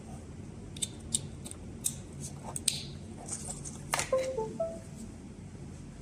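Small plastic clicks and taps as a USB cable and connector are handled and plugged into a flight controller, ending in a sharper click about four seconds in. A few short electronic tones follow right after it.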